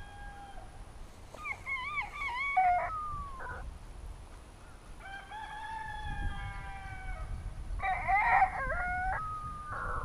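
Rooster crowing repeatedly: three long, pitched crows of about two seconds each, with a held note and a wavering note in each.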